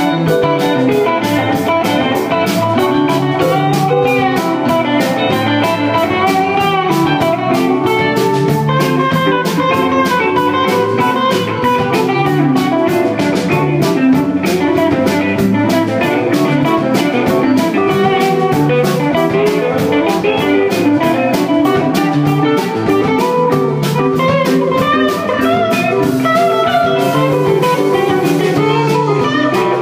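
Live rock band playing an instrumental passage with no singing: electric guitars over bass and keyboard, with a drum kit keeping a steady beat.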